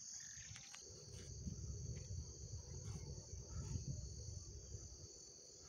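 Steady, high-pitched chorus of crickets, with a low, uneven rumble underneath.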